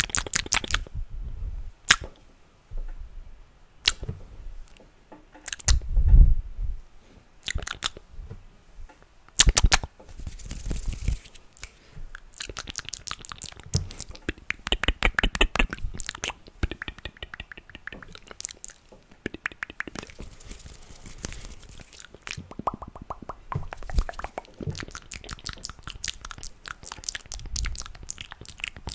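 ASMR mouth sounds close to the microphone: runs of rapid clicks and smacks, coming in quick clusters with short pauses between.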